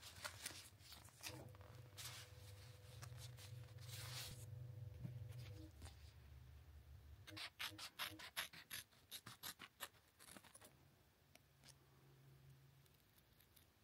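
Faint handling rustle of a silnylon repair patch, then small scissors snipping it in a quick run of a dozen or so short snips over about three seconds, cutting the patch's corners round. A faint low hum sits underneath.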